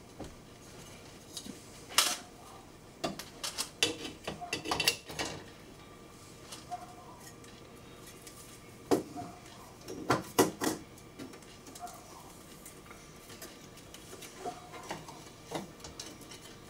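Plastic tape reels handled and fitted onto the spindles of a reel-to-reel tape deck as the tape is threaded: a series of sharp plastic clicks and clacks, loudest about two seconds in and again around ten seconds in.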